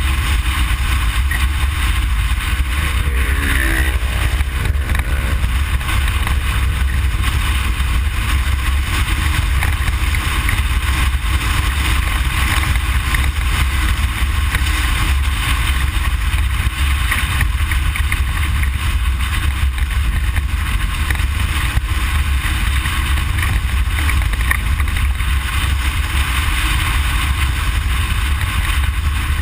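Inside the cabin of a Ford Explorer prerunner being driven off-road: a steady, loud deep rumble of engine and rough ground with wind hiss over it. A brief wavering tone sounds about three seconds in.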